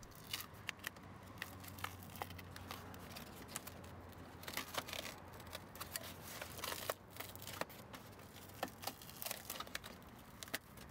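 Foam sound-deadening sheet being peeled off a car door's inner metal panel: irregular tearing and crackling with many small sharp clicks.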